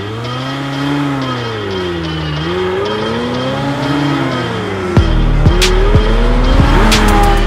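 Sports-car engine revving, its pitch climbing and falling twice as the car accelerates and eases off. About five seconds in, background music with a heavy beat joins it.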